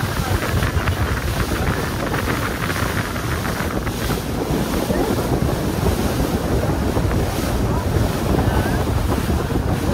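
Wind buffeting the microphone over the steady rush of water along the hull of a moving boat.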